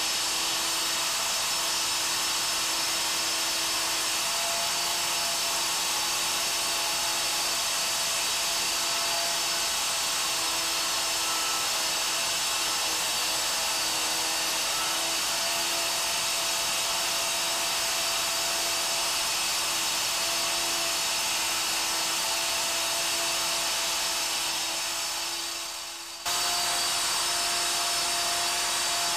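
Handheld stone grinder running steadily on a stone slab, a loud hissing whine with a constant pitch. It sags briefly near the end, then comes back abruptly.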